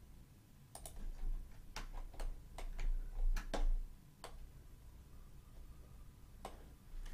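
Scattered clicks of computer keys and a pointing device, about a dozen, bunched in the first four seconds with one more near the end, over a faint low hum.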